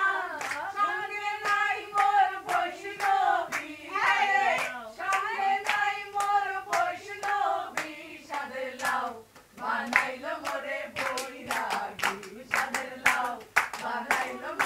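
A small group singing together to steady rhythmic hand clapping; the claps come faster and closer together in the second half.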